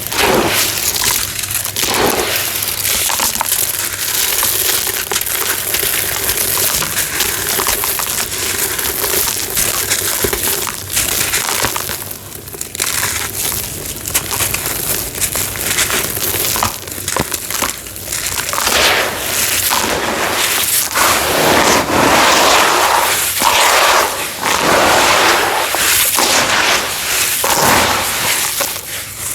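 Homemade cement crunching and crumbling: gritty, dry material breaking with many small cracks and a steady grainy crumble, with a brief pause about twelve seconds in.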